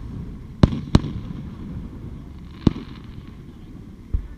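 Aerial fireworks shells bursting: two sharp bangs a third of a second apart in the first second, another near the three-second mark, and a duller thump near the end, with a low rumble between the bangs.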